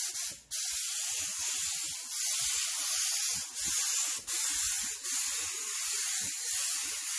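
Paint spray gun hissing as it sprays automotive base coat onto a wooden panel, its fan opened wide. The spray cuts out briefly about half a second in, then runs steadily with a few short dips.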